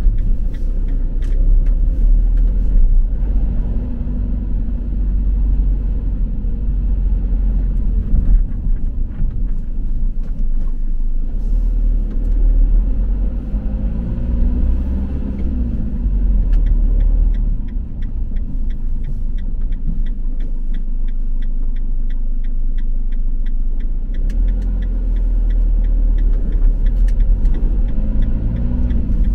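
Delivery vehicle driving, with a steady low engine and road rumble; the engine pitch rises and falls briefly about halfway. A regular ticking, about one and a half ticks a second, runs through the second half.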